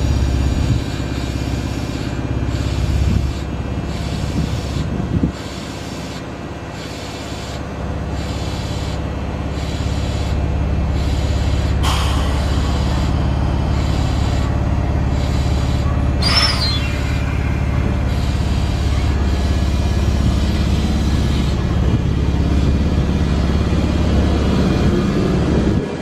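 Sanyo 3000-series electric train standing at a station, its equipment humming steadily, with a sharp click and then a short air hiss from the brakes being released partway through. Near the end it starts to pull away, the motor sound rising.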